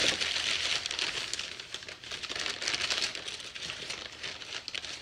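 Newspaper and plastic wrapping crinkling and rustling as it is pulled open by hand around a package of smoked dried fish, with many small crackles.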